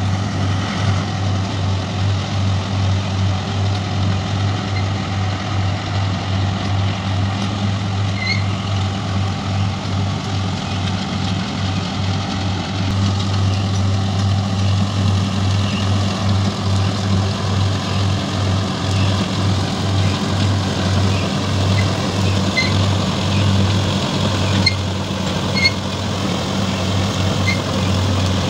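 Samrat 510 mini combine harvester running under load while harvesting wheat: a steady, low engine-and-machinery drone that pulses slightly. It gets a little louder about halfway through as the machine comes closer.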